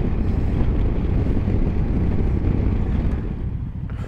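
KTM 1290 Super Adventure's V-twin engine and wind noise while riding at road speed. A little after three seconds in the rush drops away, leaving the engine idling with an even low pulse as the bike stands still.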